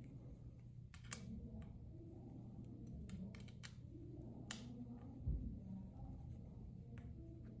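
Scattered light clicks and taps of hand tools on bicycle handlebar parts, with one low thump about five seconds in, over a steady low hum.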